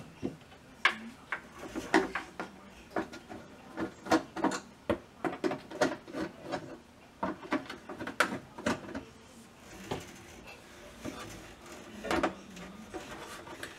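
Hands handling the plastic head cover of a Robe ColorSpot 250 AT moving-head light: a run of irregular clicks and knocks, thickest over the first nine seconds, then sparser, with one louder knock near the end.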